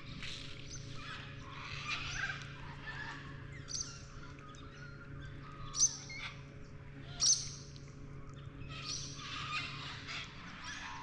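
Birds calling over and over, with two sharper, louder calls about six and seven seconds in, over the steady low hum of a kayak's electric trolling motor.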